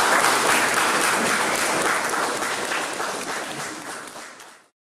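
A small audience applauding, the clapping fading away and cutting off near the end.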